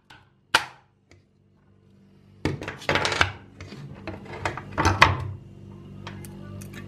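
Ice cubes being worked out of a plastic ice cube tray: a couple of knocks, a short pause, then a few seconds of crackling and clicking as the cubes come loose. Near the end, cubes are dropped into a glass of milky coffee.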